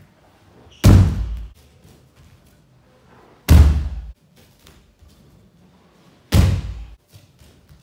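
Three heavy slaps and thuds, about three seconds apart, of a judoka being thrown with morote seoi nage and landing in a breakfall on tatami mats.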